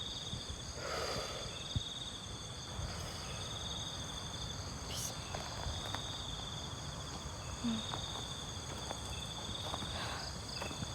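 Crickets and other night insects trilling steadily, several high-pitched chirring tones at once, over a low rumble of wind on the microphone.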